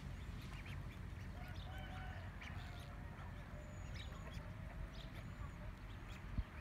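Duckling peeping in many short, high, upward-flicking calls, with lower drawn-out calls from white domestic geese and a steady low rumble underneath. A single thump comes just before the end.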